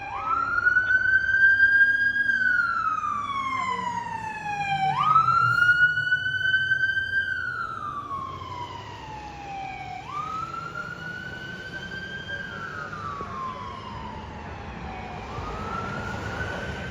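Fire engine siren sounding a wail. Each cycle climbs quickly, holds high for a moment, then slides slowly back down, repeating about every five seconds. A low rumble runs underneath.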